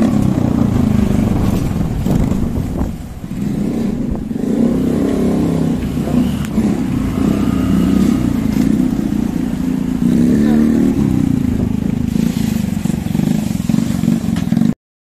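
Small two-wheeler engines running and revving while riding, pitch rising as the throttle opens. The sound briefly drops about three seconds in, then cuts off suddenly near the end.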